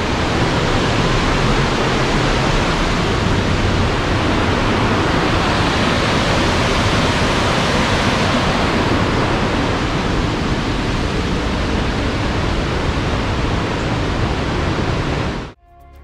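Steady, loud rush of whitewater from river rapids. It cuts off abruptly near the end, where music begins.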